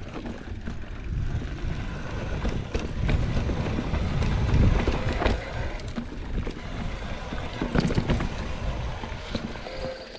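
Specialized Stumpjumper mountain bike riding a dry dirt trail covered in leaves: a steady low rush of wind on the microphone over tyre noise, with scattered clicks and rattles from the bike as it runs over bumps.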